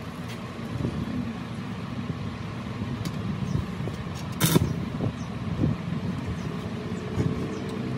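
Stick-welding arc struck briefly on a steel tie rod end, giving short crackling bursts: a faint one about three seconds in and a louder half-second one about four and a half seconds in. A steady low hum underlies them.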